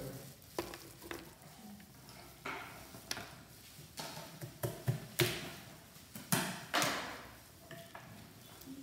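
Gloved hands working cashew nuts: scattered sharp clicks and short scraping rustles, the loudest about five seconds in and again just before seven.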